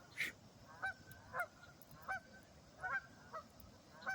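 Geese honking repeatedly, about six short honks in the span, calling back and forth.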